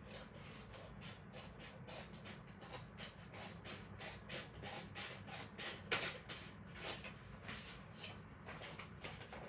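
Paper being cut by hand: a run of short, faint scratchy strokes, a few a second, a little louder in the second half.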